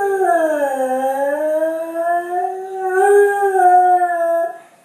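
Beagle howling: one long howl that dips in pitch over the first second, then rises a little and holds before cutting off near the end.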